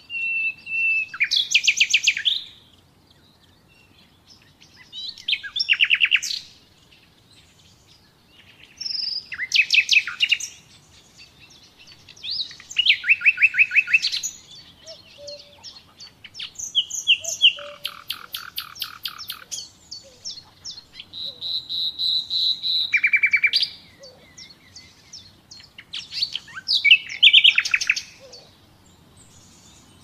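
Common nightingale singing: about eight separate song phrases with short pauses between, each a rush of rapid repeated notes and trills. The song opens with a long pure whistle and has a held steady note a little past halfway.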